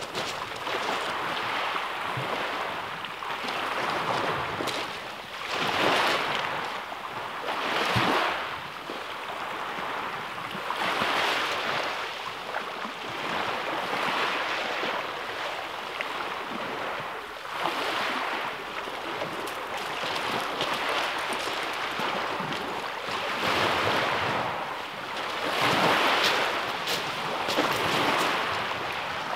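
Small waves breaking and washing over a shingle beach, with a surge of hiss every few seconds.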